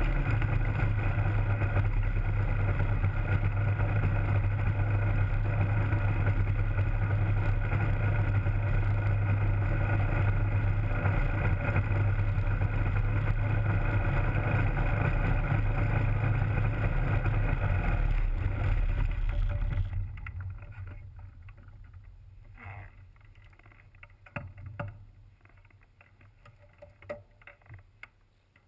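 Rotax 503 two-stroke twin engine of an ultralight running steadily at low power, driving a three-blade composite propeller. About two-thirds of the way through, the engine is shut down and winds down quickly, leaving only a few faint clicks and knocks.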